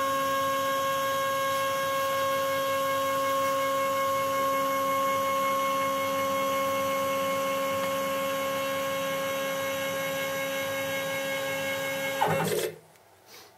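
Stepper motors of a homemade CNC router driving the gantry home along the Y axis at a steady speed: a steady whine that stops suddenly about twelve seconds in, with a brief change in pitch, as the gantry reaches its proximity home sensor.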